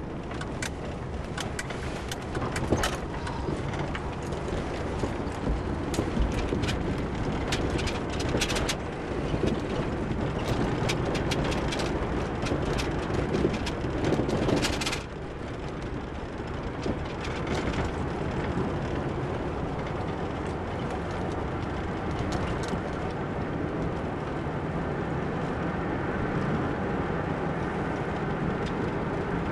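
Road and engine noise heard inside a moving car's cabin, with scattered clicks and rattles through the first half; the noise drops a little about halfway through and runs steadier after.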